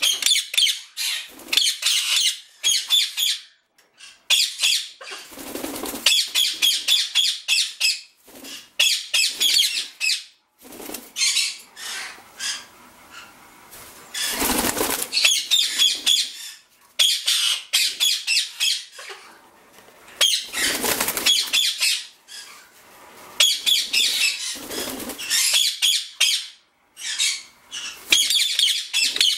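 Indian ringneck parakeets chattering in repeated bursts of rapid, high-pitched calls, with a few louder wing flaps from a bird flying in the cage.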